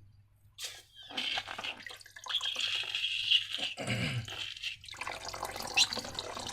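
Wet, sticky slime being squished and worked, with squelching and crackling and a short falling low squelch about four seconds in.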